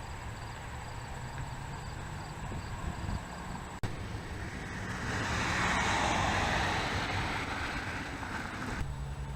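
Street traffic noise with a low wind rumble on the microphone; a vehicle passes by about five seconds in, swelling and then fading.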